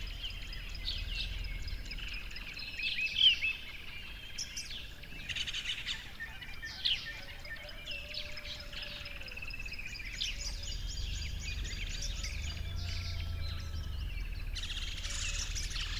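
Several birds chirping and singing over one another in quick, overlapping calls, above a faint steady low rumble.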